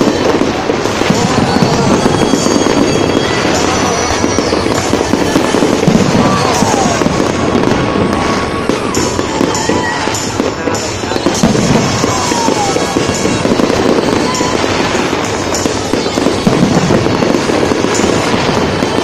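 Fireworks display: a continuous crackling and popping of bursting shells, with music and crowd voices mixed in.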